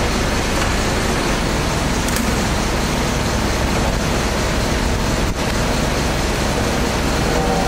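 Engine-driven hot water pressure washer running steadily: a loud, even drone and hiss with a low engine hum underneath.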